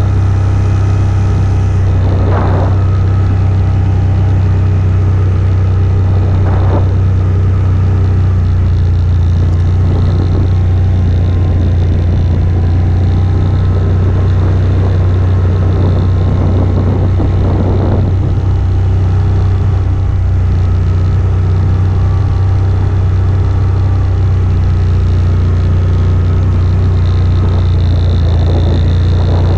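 An AODES 1000 ATV's V-twin engine running steadily under way, a constant low drone. A few brief rushes of noise rise over it about 2 s, 7 s and 18 s in.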